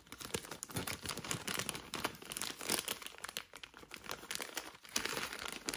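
Small clear plastic zip-lock bag crinkling in the hands, an irregular run of crackles, as the bag of round double-sided adhesive pads is handled and opened.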